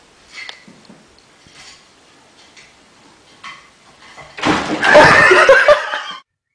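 A cat's clattering fall from a wooden chair onto a tiled floor, followed at once by loud laughter from the people watching, which cuts off suddenly.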